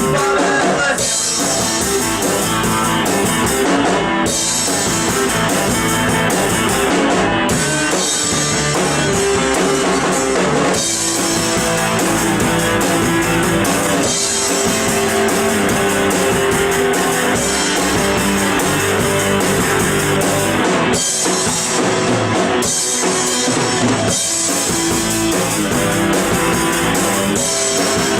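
Rock music: a band playing with drum kit and guitar at a steady loud level.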